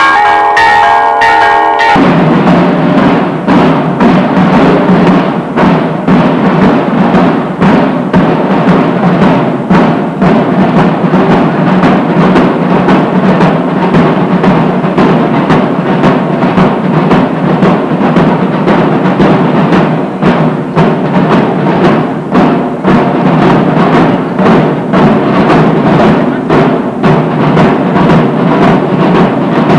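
Bells ringing, cut off suddenly about two seconds in by loud drumming music: a dense, rapid run of drum strikes that keeps going.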